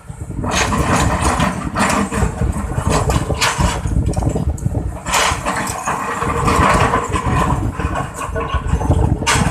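Excavator's diesel engine running at work, a steady low rumble with surges of louder noise every second or two as it digs and dumps earth.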